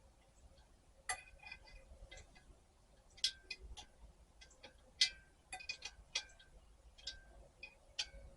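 Hand tools and small metal parts clinking and tapping against each other while a diesel heater is being taken apart, about a dozen irregular sharp clicks, some with a brief metallic ring.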